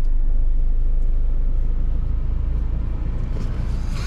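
Steady low rumble heard inside a stopped car's cabin, easing slightly about two seconds in.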